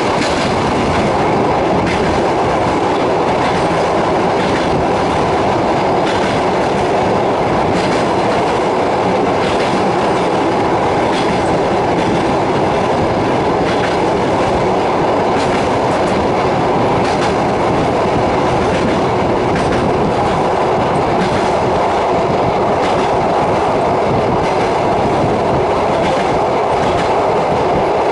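Passenger train running steadily, heard from on board: a constant rumble of wheels on rails with light clicks over rail joints.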